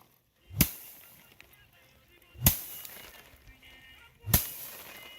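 Rice being threshed by hand: a bundle of stalks is swung and beaten down hard, three strikes about two seconds apart, each with a short swish just before the whack.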